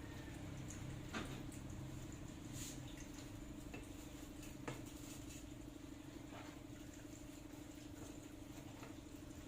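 Steady low electrical hum with scattered small clicks and light scratchy taps, the sharpest about a second in and again near the middle.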